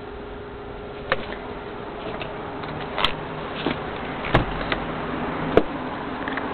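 Steady hum inside a car's cabin, with four sharp clicks and knocks spread through it.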